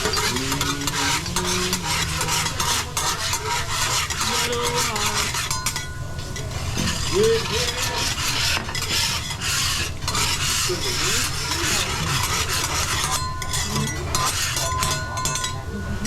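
Metal spatulas scraping and clinking on a hot stainless-steel teppanyaki griddle, over a steady sizzle, as the chef cleans the grill with oil.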